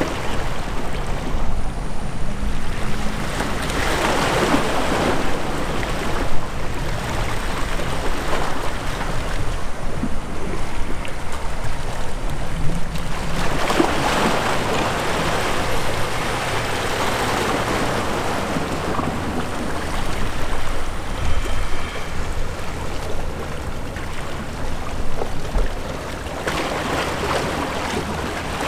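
Wind and water noise with a low rumble underneath, swelling in gusts a few seconds in, again about halfway through and near the end.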